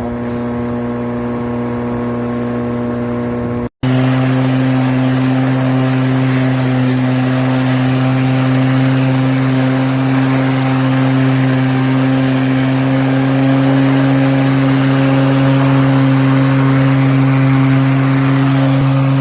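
Litheli 18-inch 40V brushless cordless lawn mower running with a steady hum. It breaks off for a split second about four seconds in, then runs on louder with more hiss.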